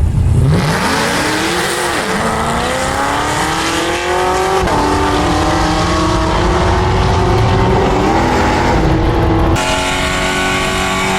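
Car engine accelerating hard in a drag strip run, its pitch climbing steadily and dropping back at each upshift, about two, four and a half and eight and a half seconds in.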